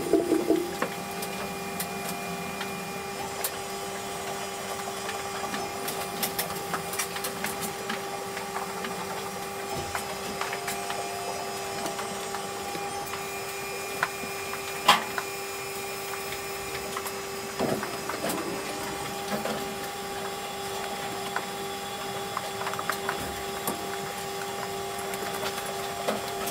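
DeLaval motorized cow brush running, its motor humming steadily while the rotating bristles rub against a cow's hide with a scratchy crackle and scattered small clicks. One sharp click stands out about halfway through.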